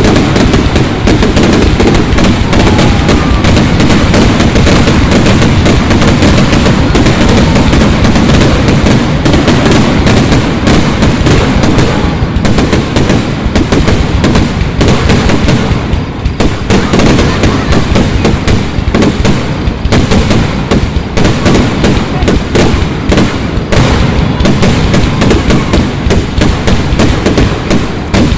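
Aerial fireworks bursting in a rapid, unbroken barrage of overlapping bangs and crackles, very loud: the finale of a fireworks display.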